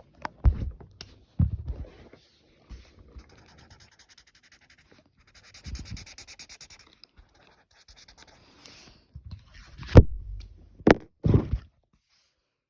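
Exaggerated heavy breathing blown straight into the microphone in irregular puffs, the loudest two near the end. In the middle come fast, rhythmic scratchy strokes of a colouring tool.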